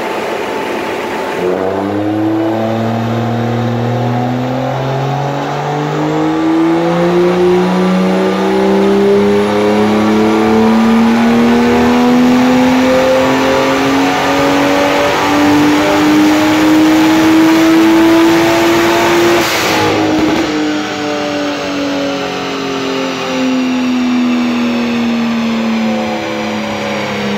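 BMW M2's N55 turbocharged inline-six, fitted with a stage 3 big-turbo kit, on a full-throttle dyno run. About a second and a half in, the revs start climbing steadily for roughly eighteen seconds. A short burst of noise marks the throttle closing, then the revs wind down slowly as the rollers coast.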